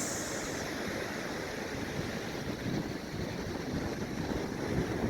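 Gulf surf washing onto the beach, with wind buffeting the microphone; a brief high hiss fades out at the very start.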